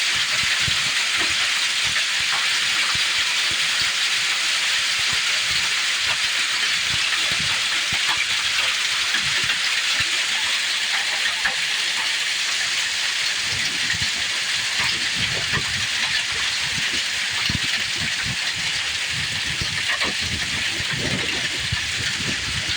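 Hailstorm: a steady, dense hiss of hail and rain pelting down, with many separate knocks of hailstones striking, more of them in the second half.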